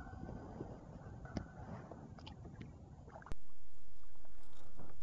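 Handling noise aboard a plastic fishing kayak: rustling and a few sharp clicks as a small caught fish is held and unhooked in gloved hands. About three seconds in, the sound cuts abruptly to a steady hiss with faint ticks.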